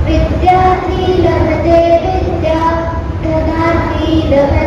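A young girl singing a Sanskrit Ganesh stotra solo into a microphone, holding long melodic notes, amplified over a low steady rumble.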